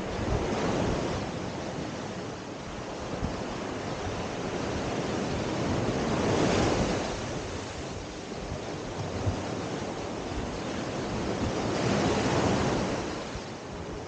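Small Adriatic Sea waves breaking and washing up a sandy beach. The surf hisses continuously and swells three times, about six seconds apart, as each wave runs up the sand.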